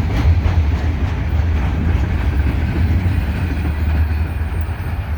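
Last cars of a freight train rolling past, a steady loud low rumble of steel wheels on the rails with a few wheel clicks in the first second.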